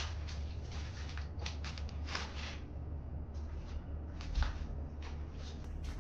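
Footsteps scuffing and shuffling with rustling handling noise: many short scrapes over a steady low rumble, and a soft thump about four and a half seconds in.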